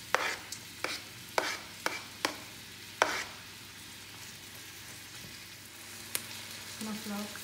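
Chopped onion and garlic sizzling in hot oil in a stainless steel wok, a steady faint hiss while they are stirred with a ladle. Sharp knocks of the utensils against the wok come several times in the first three seconds and once more near the end.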